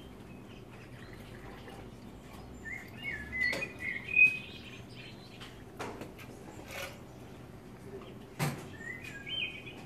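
Birdsong: two short bursts of chirping, the first and louder about three seconds in, the second near the end. Several sharp clinks of glassware and bar tools over a low steady hum.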